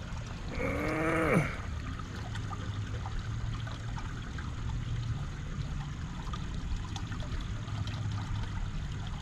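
Shallow creek water trickling and flowing steadily, with a low rumble under it. About a second in, a brief wordless voice sound with a bending pitch.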